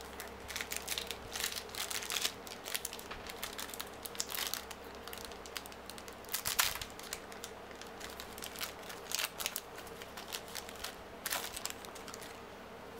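Wrapper of a Wyvern trading card booster pack crinkling as it is torn open and handled by hand: a run of sharp crackles that stops about a second and a half before the end.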